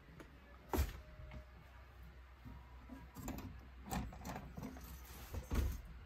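Scattered knocks and rustling from handling and moving about: one sharp knock about a second in, a few softer knocks in the middle, and a thump near the end.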